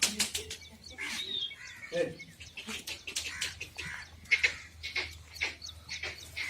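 Small birds chirping: a scattered series of short, sharp chirps.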